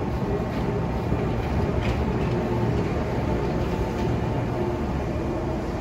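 JR Kyushu 415 series steel-bodied AC/DC electric multiple unit running, a steady low rumble with a faint on-and-off hum and a few light clicks.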